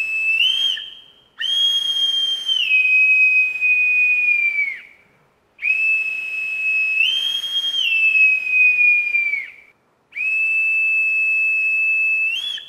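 Boatswain's call (bosun's pipe) piped by a navy sailor: long, shrill whistled notes, each held steady, stepping briefly up in pitch and falling away, about three full calls with short gaps between them. This is the pipe that comes before a shipboard announcement to all hands.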